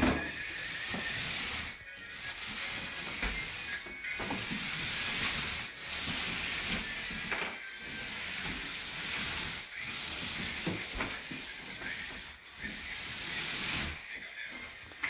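Paint roller on an extension pole rolling paint across a ceiling: a hiss in repeated strokes of about two seconds each, with short breaks between them, about seven in all.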